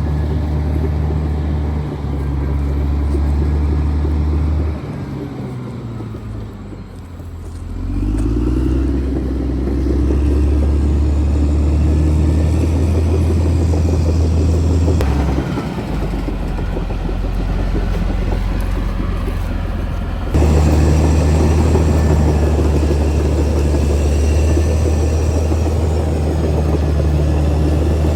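Caterpillar D6R XL bulldozer's diesel engine running under load. About five seconds in the engine drops in pitch and level, then builds back up around eight seconds. The sound shifts abruptly twice later on.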